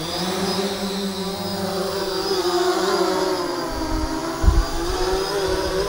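3DR X8 coaxial octocopter's eight electric motors and propellers spinning up for take-off: a steady whirring buzz of several tones whose pitch rises at the start, then wavers as it climbs away. A brief low thump is heard about four and a half seconds in.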